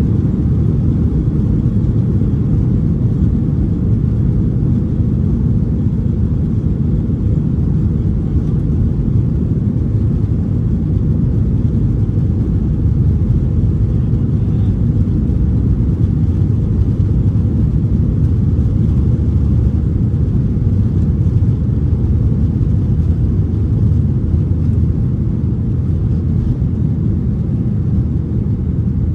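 Steady low rumble heard from inside the cabin of a Boeing 737-800 taxiing: its CFM56-7B jet engines running at low power and the airliner rolling along the taxiway.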